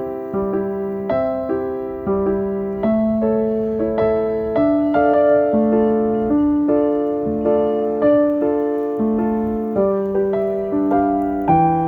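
Background music: soft solo piano playing a slow, gentle melody, its notes struck at an even pace and left to ring.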